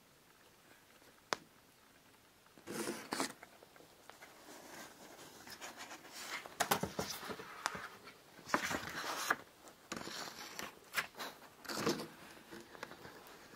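Rustling and handling noises close to the microphone: irregular scraping bursts that come and go, after a single sharp click about a second in.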